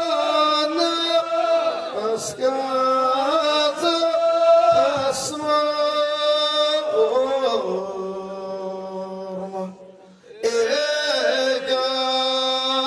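A group of men chanting an ahwash song in unison, in long held notes that step up and down. Around eight seconds in, the singing thins to a single lower held note, then after a short break near ten seconds the full group comes back in.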